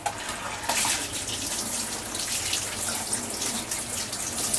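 Kitchen tap running into a sink while greasy cookware is washed under the stream, with light knocks of the pans against the sink. The water grows louder about a second in.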